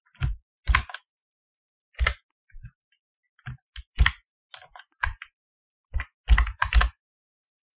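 Typing on a computer keyboard: about a dozen separate key presses at an uneven pace, the loudest few coming close together near the end.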